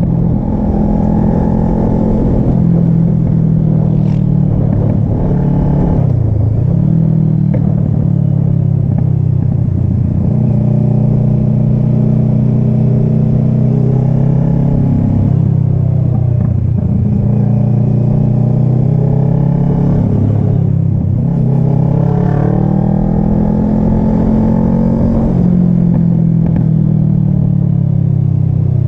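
Kawasaki ER-6n's parallel-twin engine running under way, its pitch climbing under throttle and dropping back several times.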